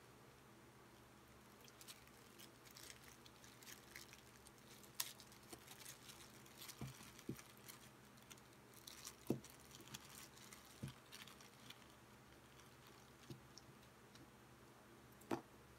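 Faint crinkling and rustling of a clear plastic bag and protective wrap being pulled off a wristwatch, with a few soft taps and one sharper tap near the end.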